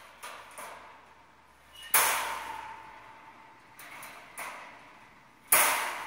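Wire bird cage clanking: a few light metal clicks, then two loud sharp metal impacts about three and a half seconds apart, each leaving a ringing tone that fades slowly.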